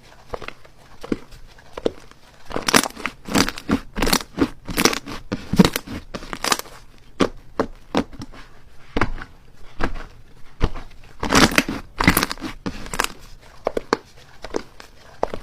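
Slime being squeezed and worked by hand, giving irregular runs of short sticky clicks and crackles, busiest in two stretches a few seconds in and again past the middle.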